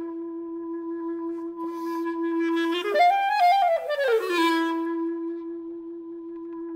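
Solo clarinet holding a long, steady low note. About three seconds in, a short phrase swoops up and back down, then settles on the same held note, which slowly fades.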